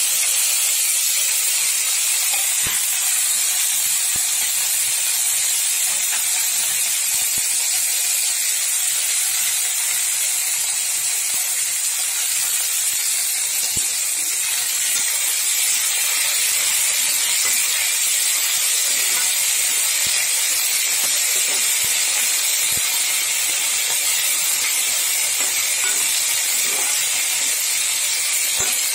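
Coriander leaves sizzling in hot oil in a wok, a steady frying hiss, with a few faint clicks of a metal spatula against the pan.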